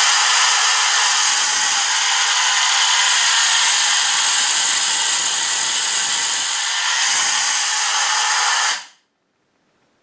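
Compressed-air blow gun from an industrial air compressor releasing a continuous loud hiss of air through a plastic funnel. The hiss eases briefly about seven seconds in and stops abruptly about nine seconds in.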